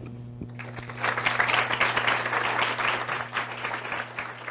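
Audience applauding: the clapping starts about a second in, is fullest for the next couple of seconds, then thins and fades.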